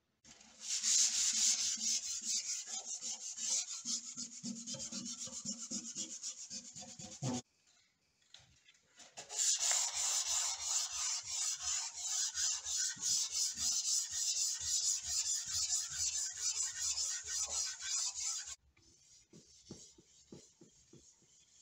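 Sandpaper rubbed by hand over a flat wooden panel in quick, even back-and-forth strokes. There are two long spells with a short break between them. Near the end the sound drops to much quieter light scraping and ticks.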